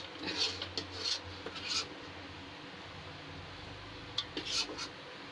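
Steel spoon scraping and pressing mawa barfi mixture across a ghee-greased steel tray, spreading it flat to set: short scrapes of metal on metal, a few in the first two seconds and again about four seconds in.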